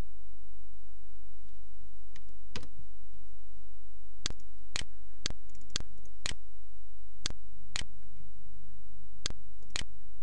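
Computer mouse buttons clicking about ten times, several in quick pairs about half a second apart, over a steady low hum.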